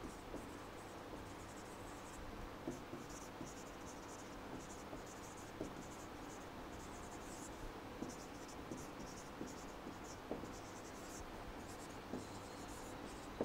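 Dry-erase marker writing on a whiteboard: faint, short scratchy strokes in quick runs as words are written, with light taps of the tip between letters.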